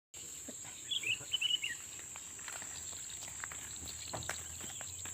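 Outdoor field ambience: a steady high-pitched insect drone, typical of crickets. A few short high chirps come about a second in, with scattered faint clicks and rustles throughout.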